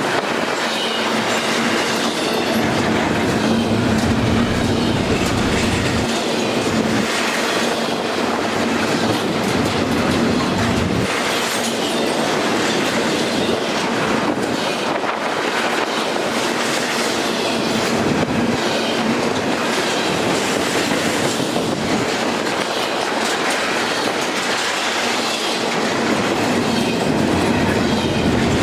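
Freight train rolling past, its wheels clicking over the rail joints in a steady run, with a continuous rumble of rolling cars.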